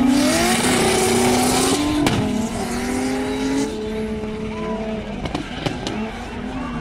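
Two drift cars' engines revving hard and gliding in pitch as they slide in tandem, over the hiss of squealing tyres. A sharp crack comes about two seconds in. The tyre hiss drops away about halfway through, and the engines carry on a little quieter.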